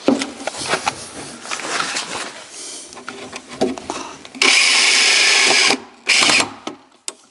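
Cordless drill running in two bursts, a long one of about a second and a half and a short one after it, following a spell of clicks and knocks of tools and panels being handled.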